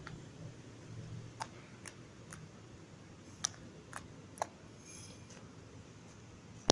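Six short, sharp, light clicks at irregular intervals over about three seconds, the loudest near the middle.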